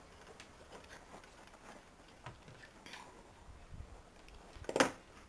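Faint small clicks of wire being handled, then one sharp snap near the end as pliers cut through the craft wire.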